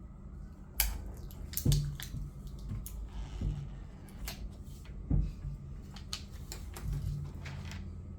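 Handling noises of small plastic parts: a string of light clicks and taps with soft rustles, and a couple of louder knocks near the start and midway.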